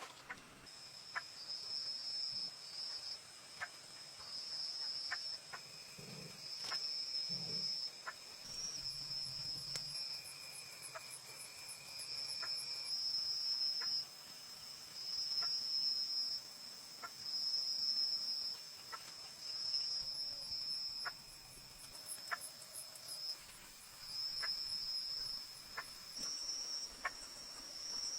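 Insects chirring in a high-pitched buzz that swells and breaks off in spells of one to two seconds, with scattered light clicks or taps under it.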